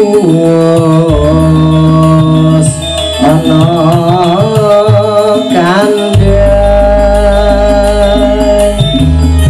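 A song with a sung vocal and deep held bass notes, played loud through a PA set of 15-inch top speakers and 18-inch subwoofers as a sound test. The deep bass drops out for about a second at the start and again about five seconds in.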